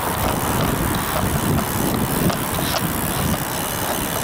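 Wind rushing over the microphone of a camera carried on a moving road bicycle, a steady noisy rumble, with a few faint ticks.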